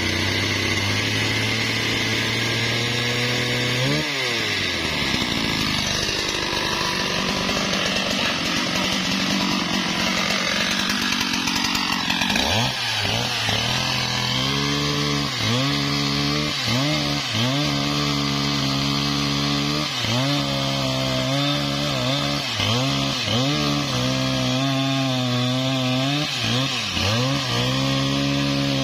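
Husqvarna 395XP two-stroke chainsaw running steadily at low speed, revving up about four seconds in, then cutting a sengon log under load. While it cuts, the engine note dips and recovers about once a second.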